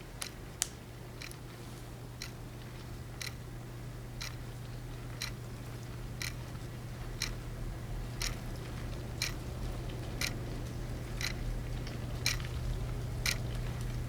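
Sharp, regular ticks about once a second over a low steady hum that slowly grows louder.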